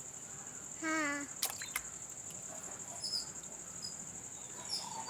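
Steady high-pitched insect trilling, such as crickets, running throughout. About a second in there is a short wavering call, and a few faint high chirps come later.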